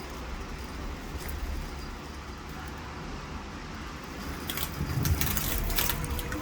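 Heavy rain pouring steadily, with drops striking a nearby surface in sharp ticks and taps. A flurry of louder hits comes between about four and a half and six seconds in.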